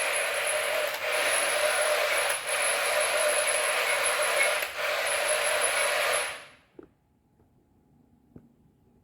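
A small geared motor whirring steadily, with a high whine over it and three brief dips. It fades out about six and a half seconds in, leaving near silence with a few faint clicks.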